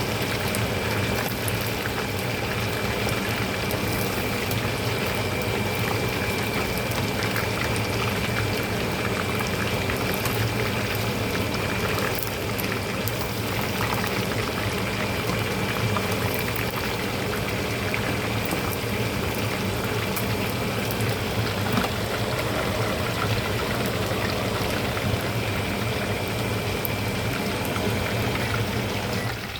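Chicken drumsticks deep-frying in hot oil: a steady, dense crackle and sizzle of bubbling oil.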